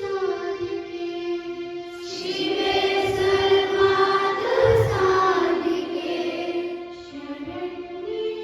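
Music with a group of voices singing together over a steady held note; the voices come in about two seconds in and grow louder, then ease off near the end.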